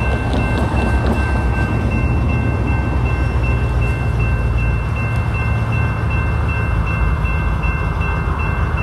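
Steady low rumble of a diesel freight locomotive approaching from a distance, with a few faint, thin, steady high tones above it.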